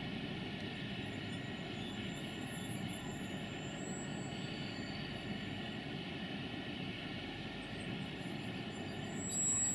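CFR class 40 (060-EA) electric locomotive running slowly, a steady mechanical drone with several held tones. Near the end, a brief louder high tone rises over it.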